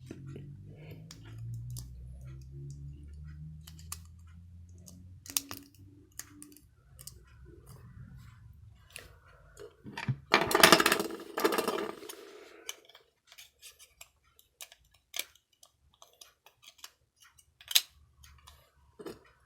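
Small plastic clicks and scrapes of a car remote key fob being handled as a CR1632 coin cell battery is fitted into it. There is a louder stretch of clustered clicking and rubbing between about ten and twelve seconds in, and a low hum under the first few seconds.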